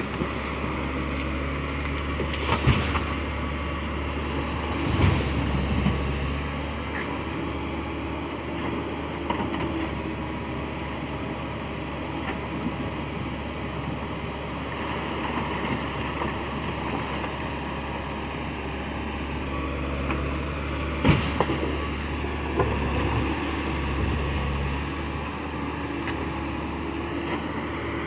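Excavator's diesel engine running steadily as it loads a tipper truck, with a few sharp knocks, the loudest about 21 seconds in.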